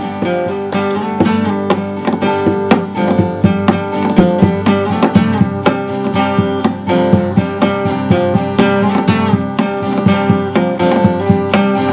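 Background music: a bright, fast acoustic guitar tune with many quickly plucked and strummed notes.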